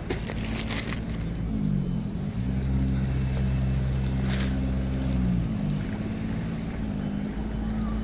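A nearby engine running with a steady low hum, its pitch shifting around two seconds in and again about five seconds in. A few sharp clicks come near the start and about four seconds in.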